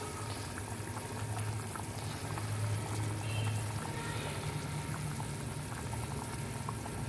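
Curry gravy boiling in a pan, a steady bubbling, with a low hum underneath.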